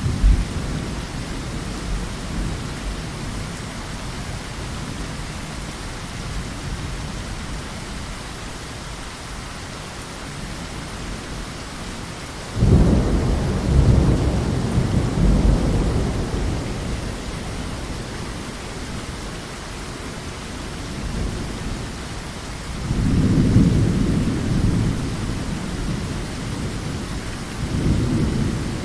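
Thunderstorm: steady heavy rain with rolling thunder. A thunderclap breaks in suddenly about halfway through and rumbles on for several seconds, and further rolls swell up near the end.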